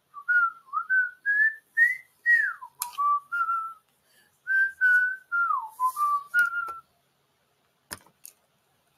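A person whistling a short tune, about a dozen notes with slides up and down between them, stopping about seven seconds in. Two short clicks follow near the end.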